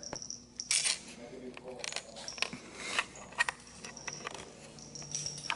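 Kinkajous scrambling about on stairs and a stair railing: an irregular run of sharp clicks and taps from their claws, with short scuffing rustles. The loudest scuffs come about a second in and again around three seconds in.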